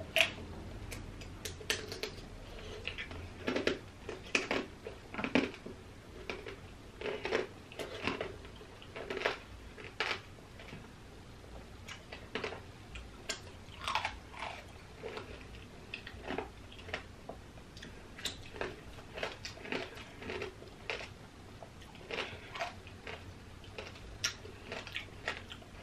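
Biting and chewing candied strawberries (tanghulu): the hard sugar shell cracks and crunches in many irregular bites, with wet smacking as the fruit is chewed.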